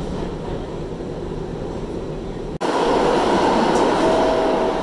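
New York City subway train rumbling along the track as it comes into a station. A little over halfway the sound drops out for an instant and comes back louder, and near the end a steady chime note sounds, the first tone of the two-note door-closing chime.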